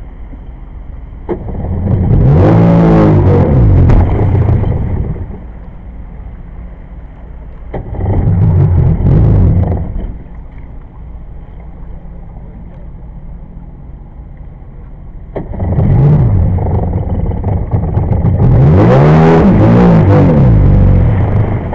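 1994 Sea-Doo's two-stroke engine, running on bare carburetors with no flame arrestors, idling and revved up and back down three times, the longest rev near the end.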